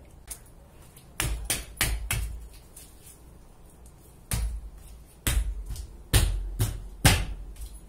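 A series of separate knocks and heavy thuds, a few lighter ones early on and louder, deeper ones from about four seconds in: a Casio G-Shock watch strapped to a bare foot being banged against hard surfaces in a durability test.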